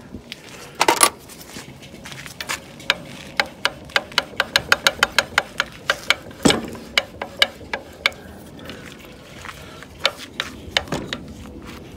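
A string of sharp clicks and knocks from hand tools and parts being handled on a radial arm saw's head and motor mount. There are loud knocks about a second in and halfway through, and a quick run of clicks at about five a second in the middle.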